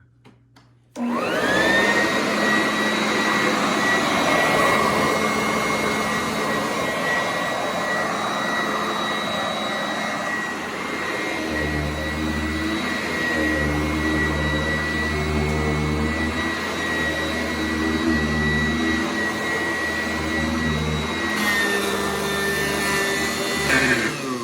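Sanitaire S675 upright vacuum cleaner switched on about a second in, its motor spinning up into a steady high whine. From about halfway a lower throb comes and goes under the whine, and the whine dips briefly near the end.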